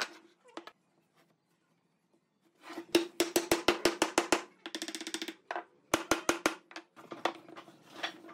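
Rapid bursts of sharp knocks, about eight a second, over a steady ringing tone: a resonant object struck in quick runs, first about three seconds in, again about six seconds in, and more faintly near the end.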